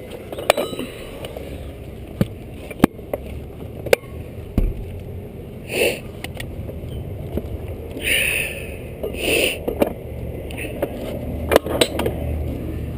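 Irregular knocks, clicks and short scrapes of equipment being handled, over a steady low rumble.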